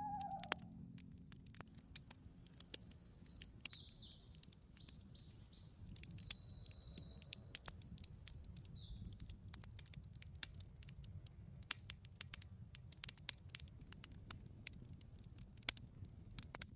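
Campfire crackling with irregular sharp pops over a low rumble. Birds chirp in quick high phrases from about two to nine seconds in.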